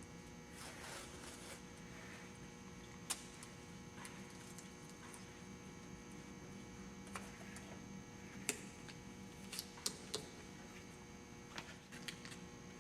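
Faint steady electrical hum with scattered light clicks and taps as a rubber door weatherstrip is worked by hand onto the door-opening pinch weld, several of them clustered in the last few seconds.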